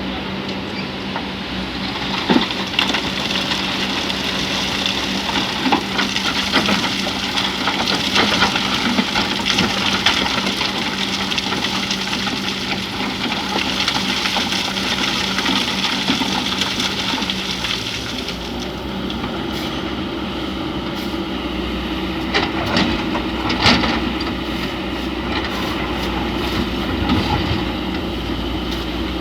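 Excavator's diesel engine running steadily under load, with scraping and knocking as the bucket works through sand and stones. After about eighteen seconds the sound settles to a steadier, lower hum, broken by a few sharp clanks.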